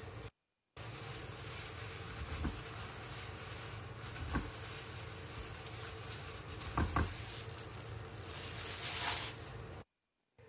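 Kitchen work sounds: a steady hiss with a few light clicks and knocks of utensils, swelling briefly near the end and dropping out twice.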